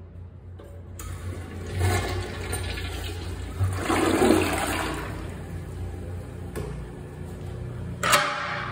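Toilet flushing: a sudden rush of water into the bowl about a second in, loudest around four seconds, then easing to a lower, steadier flow. Near the end a metal stall-door latch clacks sharply once.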